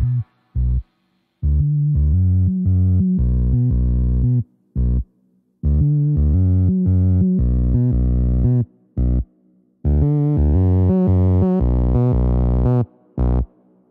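Background music with a pulsing bass line that stops abruptly for about a second four times.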